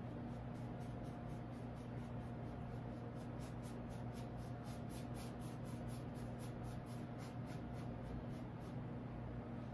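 Paintbrush brushing black paint onto a canvas: soft repeated scratchy strokes at about four a second, over a steady low hum.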